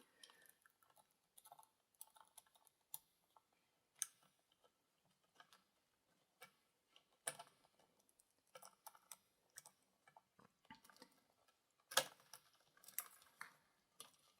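Faint, scattered light clicks and taps of a cheap deadbolt's metal cylinder parts being handled with a pick while it is taken apart, with a few sharper clicks about 4, 7 and 12 seconds in.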